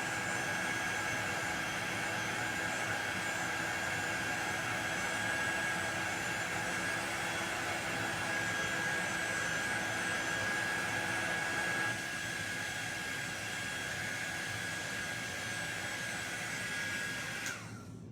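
Handheld hot-air dryer blowing steadily, with a steady whine over the rush of air, drying freshly applied chalk paste on a cutout. It eases slightly about two-thirds of the way through and shuts off just before the end.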